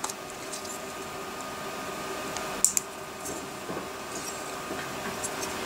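Small sharp clicks and snaps of ABS support material being clipped with flush cutters and broken off a 3D-printed figurine, two close together about two and a half seconds in. A steady faint hum runs underneath.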